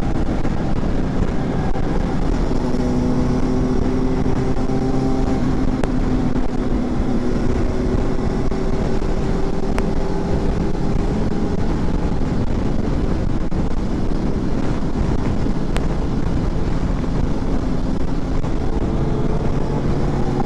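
Honda CB500X parallel-twin engine running steadily at highway cruising speed, its note drifting slightly with the throttle, under constant wind and road noise from riding.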